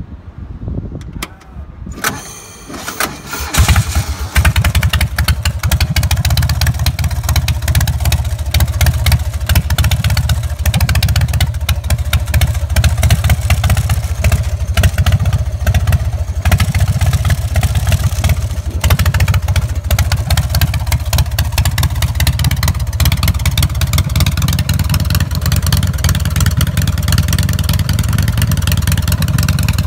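Harley-Davidson Evolution air-cooled V-twin engine in a VW Beetle being started: a couple of seconds of cranking, catching about three and a half seconds in, then running steadily and loudly.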